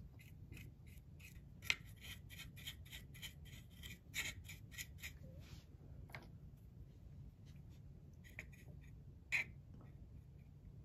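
A flat paintbrush dry-brushing paint onto a plastic model, the bristles making faint, quick scratchy strokes, several a second for about five seconds, then only a few single strokes.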